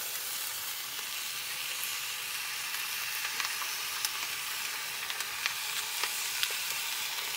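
Diced chicken sizzling in a small saucepan over a gas burner: a steady frying hiss with scattered small crackles.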